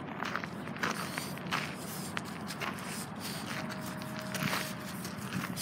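Footsteps scuffing and crunching unevenly on a sandy, gravelly dirt path.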